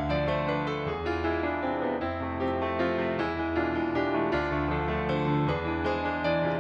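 Background music: a piano-led instrumental passage with a steady run of notes over held bass notes.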